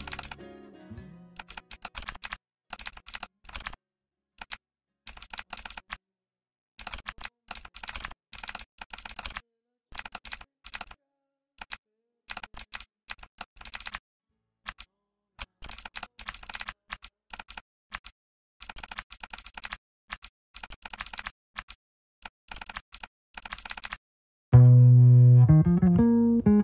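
Keyboard typing: bursts of quick keystroke clicks separated by short pauses. About two seconds before the end, loud music with bass and guitar cuts in suddenly.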